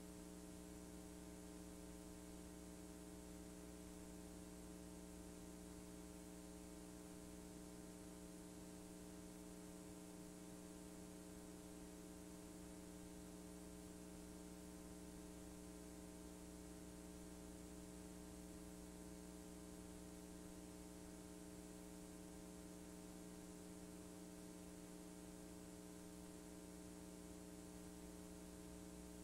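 Near silence: a faint, steady electrical hum with hiss, the background of a blank stretch in a VHS-C tape transfer.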